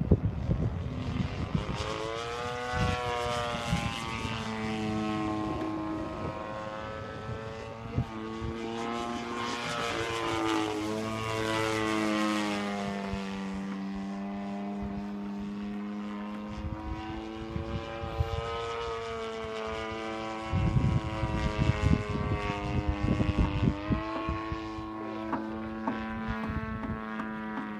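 DLE-55 single-cylinder two-stroke petrol engine and propeller of an MX-2 RC aerobatic plane in flight. Its pitch rises and falls repeatedly with throttle changes and passes, with bursts of low rumbling noise at the start and about twenty seconds in.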